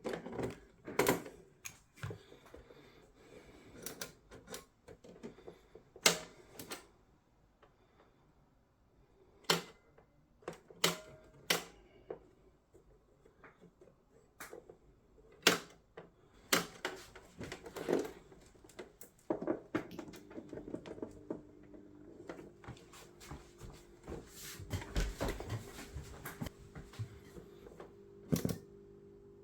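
Irregular sharp clicks and knocks of a boombox's hard plastic case, keys and switches being handled. A faint steady hum with a few held tones comes in about two-thirds of the way through.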